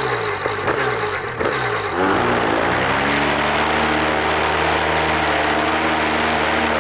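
A Polini Thor 202 paramotor engine and propeller running. It turns over unevenly at idle, then revs up about two seconds in, holds a steady higher speed and starts to drop back at the end. This is the new engine's first start after its coolant fill.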